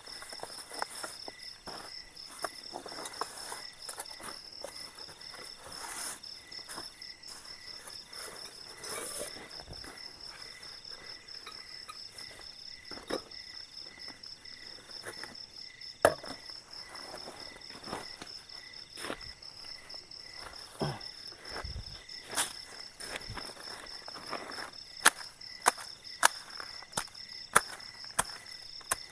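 Night insects chirring steadily in a continuous, finely pulsing high-pitched chorus, while nylon tent fabric and camping gear rustle and leaf litter crunches underfoot as a dome tent is handled. Several sharp clicks or knocks stand out, one about halfway through and a quick run of them near the end.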